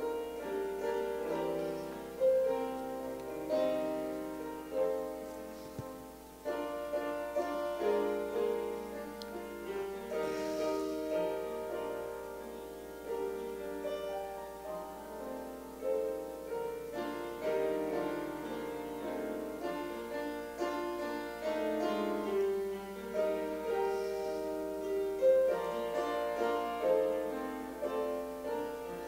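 Solo piano playing a slow invitation hymn in full chords, each struck and left to ring.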